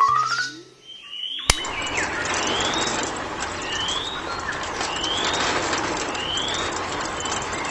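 A bird chirping, a short rising call repeated about once a second, over a steady hiss. A brief rising tone ends in a sharp click about one and a half seconds in.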